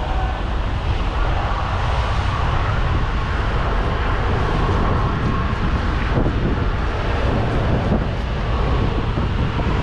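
Steady, loud mechanical rumble and hiss of running machinery, with a couple of faint ticks about six and eight seconds in.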